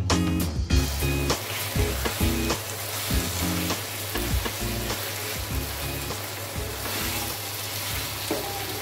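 Diced meat and onions sizzling in oil in a nonstick wok while a wooden spatula stirs and scrapes through them. Plucked-string background music plays over it, loudest in the first second or so.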